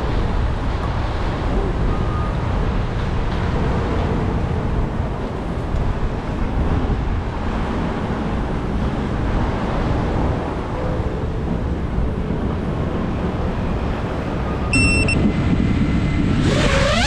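Steady outdoor noise of road traffic, with wind rumbling on the microphone. A short electronic beep about fifteen seconds in, and music sweeping in at the very end.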